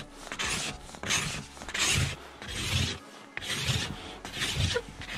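Small plastic ice scraper rasping across frost and ice on a car windshield in repeated short strokes, a little more than one a second.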